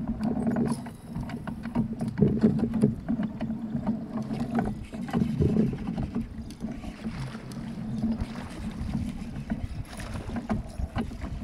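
Water lapping and slapping against a plastic kayak hull, with many small irregular knocks.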